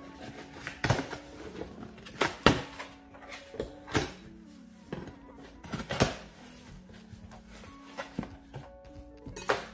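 Cardboard shipping box being opened by hand: packing tape pulled loose and the flaps forced open, giving a handful of sharp cardboard snaps and crackles over a quieter rustle.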